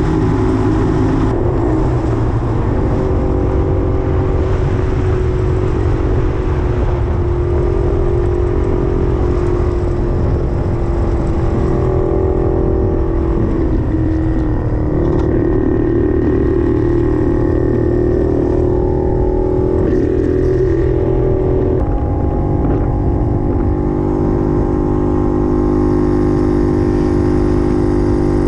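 Puch 250 TF motorcycle's two-stroke engine running while riding, its note rising and falling with the throttle, heard from on the bike along with wind and road noise.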